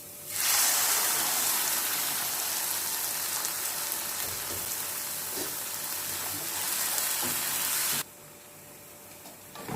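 Tomato puree sizzling and spattering in hot oil with onions in a pan, a steady loud hiss. It starts suddenly just after the beginning and cuts off sharply about two seconds before the end.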